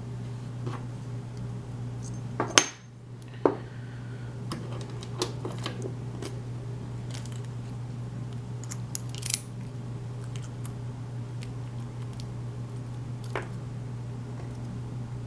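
Small metal lock parts and tools being handled on a hard surface: two loud sharp clacks about two and a half and three and a half seconds in, then scattered lighter metallic ticks and clinks. A steady low hum runs underneath.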